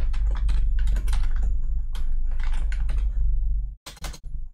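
Typing on a computer keyboard: a quick, uneven run of key clicks over a low hum, with a short pause near the end before a few more keystrokes.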